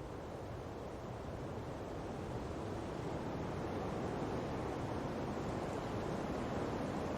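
Ocean breeze blowing through palm fronds over the wash of beach surf: a steady rush that swells gradually louder.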